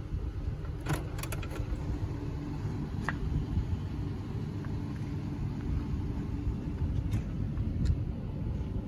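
Low rumble of wind and handling noise on the microphone, with a quick cluster of sharp clicks about a second in and single clicks later on, as the SUV's tailgate button and lower tailgate are worked.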